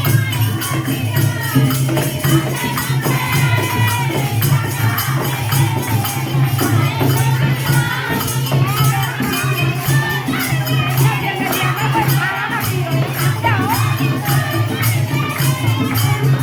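Hindu devotional song: voices singing over a steady low drone and a fast, even percussion beat.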